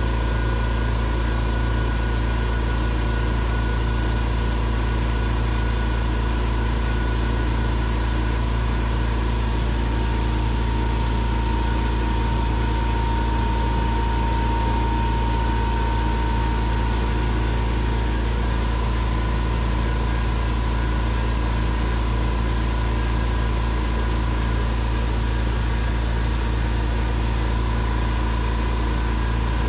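Steady hum and hiss of running machinery, with a faint high whine held throughout.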